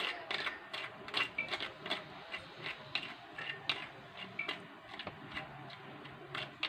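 Irregular light scraping and clicking, several times a second, of a sieve being worked as blended lemon pulp is pressed through it to strain out the concentrate.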